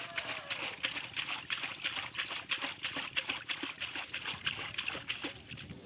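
Water splashing and trickling in quick, irregular splashes, several a second, stopping abruptly near the end.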